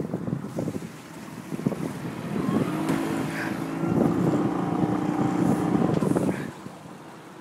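Wind buffeting the microphone over water noise on a small fishing boat, with a steady motor hum that comes in about two and a half seconds in and stops about six and a half seconds in.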